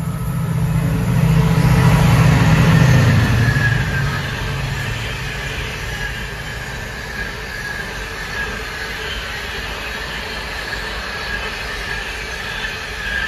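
Intermodal container freight train passing at speed. The locomotive's rumble swells and peaks in the first few seconds as it goes by. The container wagons then roll past with a steady rumble and a thin, high wheel squeal.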